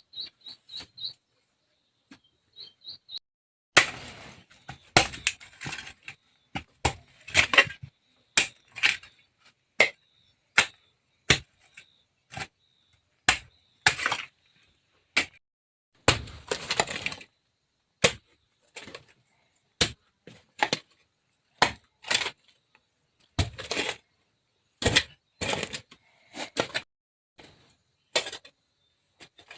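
Irregular series of sharp knocks, cracks and brief crashes of hard material being broken apart during house-repair work. A few short high chirps of a bird come in the first three seconds, before the knocking starts.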